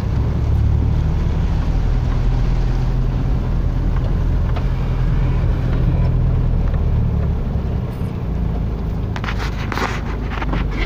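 Car engine running and tyres on a wet road, heard from inside the cabin while driving slowly, a steady low hum with road noise. A quick run of crackling clicks comes in near the end.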